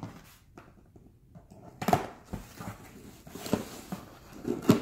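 A cardboard box and plastic packaging being handled and cut with scissors: a few short rustles and snips at about two and three and a half seconds in, with the loudest one near the end.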